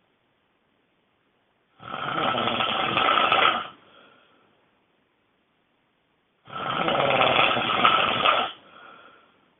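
A person snoring very loudly: two long snores of about two seconds each, roughly five seconds apart, each trailing off into a brief fainter sound, with quiet between breaths.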